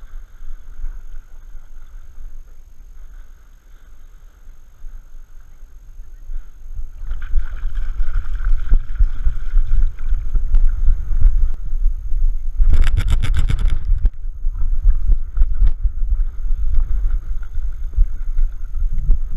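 Water sloshing and splashing around a Bernese Mountain Dog wading in shallow lake water, with wind buffeting the camera housing strapped to her back. The noise gets louder about seven seconds in, and just past halfway there is a rapid rattling burst lasting about a second.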